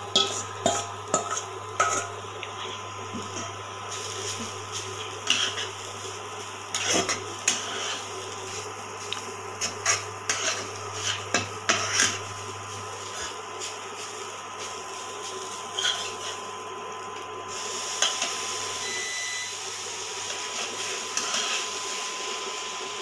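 A metal spoon stirring grated carrots in a metal pan, scraping and knocking against the pan in irregular clicks, with fewer strokes near the end. A steady hum runs beneath.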